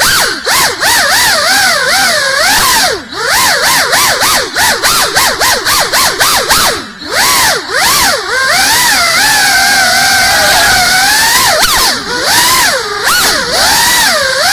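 Small FPV quadcopter's brushless motors and propellers whining, the pitch swinging up and down constantly with the throttle. It dips briefly a few times, around three and seven seconds in, and holds steadier for a few seconds after the middle.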